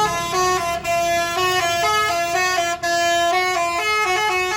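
A bus's basuri (telolet) musical horn playing a quick, loud tune, its tones jumping from note to note several times a second.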